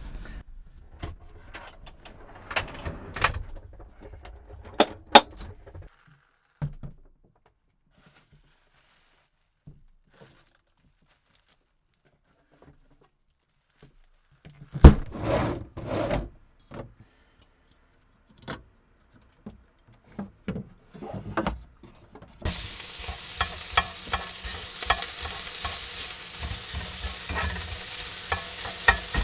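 Scattered clicks and knocks of kitchen utensils being handled, a short quiet, then a clatter. About three-quarters of the way through, food starts sizzling and crackling steadily in a hot pan.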